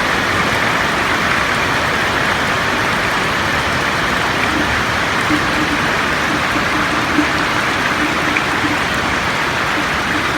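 Steady rain falling on a roof, an even unbroken hiss.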